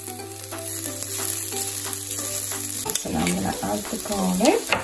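Chopped onions sizzling as they fry in oil in an enamelled pot, stirred with a silicone spatula. In the last two seconds the spatula scrapes the pot with a few loud squeaky strokes.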